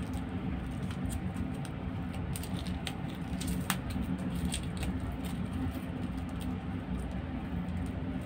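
Thin plastic film crinkling and crackling in small irregular clicks as fingers pick at and peel it off a gel air freshener's plastic casing, with a sharper crackle about three and a half seconds in. A steady low hum runs underneath.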